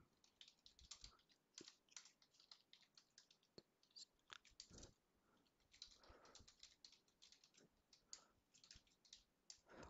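Faint typing on a computer keyboard: a run of light, irregular key clicks with brief pauses.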